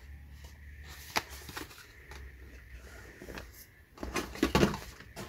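Cardboard cologne boxes being handled and set down: a single sharp tap about a second in, then a cluster of knocks and rustles near the end, over a faint low hum.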